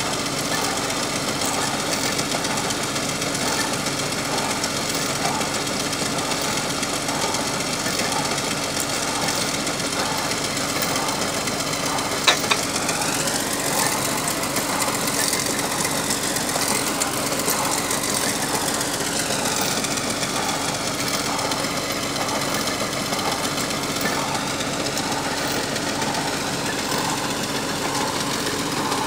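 Borewell drilling rig's engine running steadily with a regular knocking beat, its higher whine rising and falling back twice. A single sharp knock near the middle.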